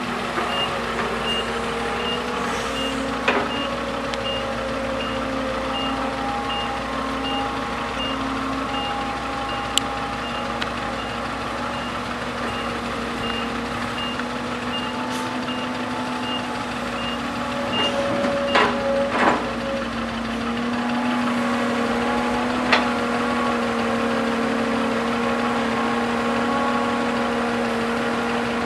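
Heavy diesel earthmoving machinery running steadily, with a reversing alarm beeping about twice a second that stops about two-thirds of the way in. A few sharp metal clanks come through, and the engine grows a little louder near the end.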